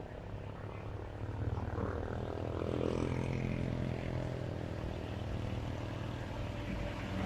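Truck engine running with a low, droning rumble, growing steadily louder as the truck comes closer.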